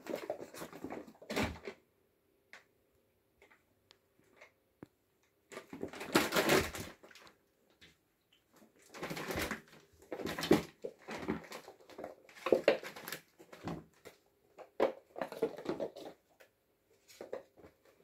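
Kittens play-fighting: irregular bursts of scuffling and scrabbling as paws and bodies scramble on a hard windowsill and a mat, with short quiet gaps between bouts.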